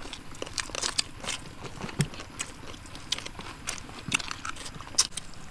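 Several people eating with their fingers, chewing and smacking their lips, heard as irregular short clicks and crackles.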